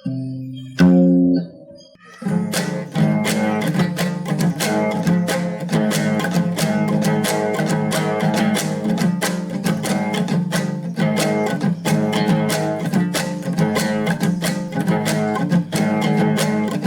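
Viola de cocho, the Mato Grosso folk lute, playing a few ringing plucked notes, then strummed in a fast, steady rhythm from about two seconds in.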